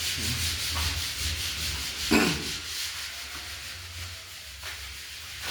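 Steady scratchy rubbing noise with fine rapid strokes, thinning out towards the end, and a brief louder sound about two seconds in.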